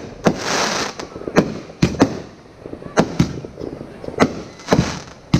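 Aerial fireworks going off in quick succession: about ten sharp, irregularly spaced bangs, with a stretch of hissing after the first one.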